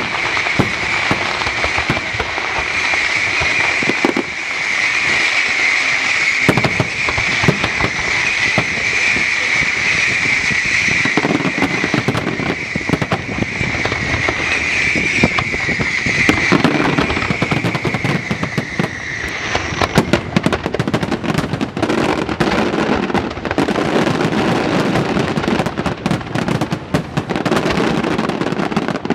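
Fireworks display going off continuously: dense crackling and bangs, with a steady high-pitched sizzle under the first two-thirds that stops about twenty seconds in, after which deeper booms and crackle take over.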